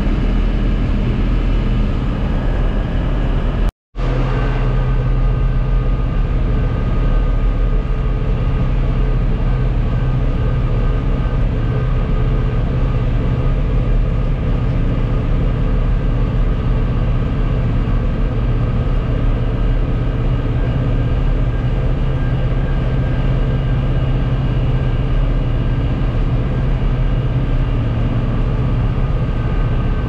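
Case IH CS 86 tractor engine running steadily at road speed, heard from inside the cab, a constant drone with the tyres on the road. The sound cuts out for a moment just under four seconds in.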